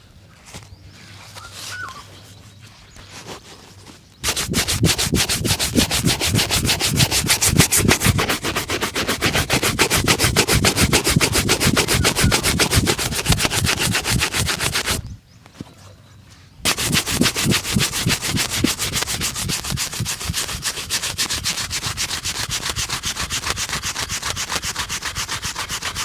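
A shoe being rubbed hard in fast back-and-forth strokes during a shoe shine, several strokes a second. The rubbing starts about four seconds in, stops briefly a little past the middle, then picks up again.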